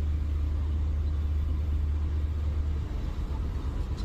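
Low, steady engine rumble of heavy machinery that breaks up and eases about three quarters of the way through, over general site noise.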